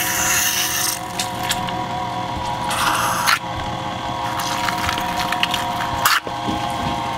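Electric meat grinder's motor running with a steady whine while it grinds seaweed. A plastic stomper scrapes and squishes the strands down the feed tube in short spells at the start, about three seconds in, and near the end, where there is a sharp click.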